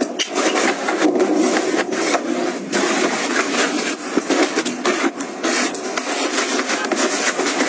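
Nylon suitcase lining and plastic and fabric packing pouches rustling and crinkling as they are handled and pressed into place, with many small clicks and taps.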